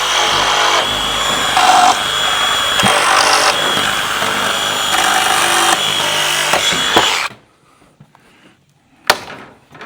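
Handheld power tool running at speed, then stopping suddenly about seven seconds in; a single sharp knock follows about two seconds later.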